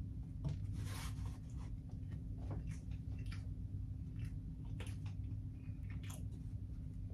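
A person chewing a bite of veggie burger, with irregular short mouth sounds. A steady low hum runs underneath.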